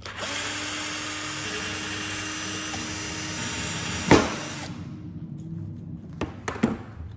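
Cordless drill with a socket extension spinning out a thermostat housing bolt on a cylinder head: a steady whir for about four and a half seconds, with a sharp click shortly before the motor stops. A couple of light knocks follow.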